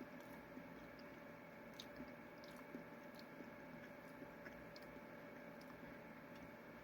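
Faint chewing of a soft pancake sandwich: scattered small wet mouth clicks over a steady low hum.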